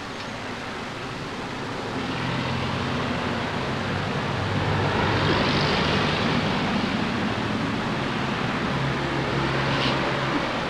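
Street traffic: a passing vehicle's engine hum and tyre noise swelling to a peak about halfway through, then easing off.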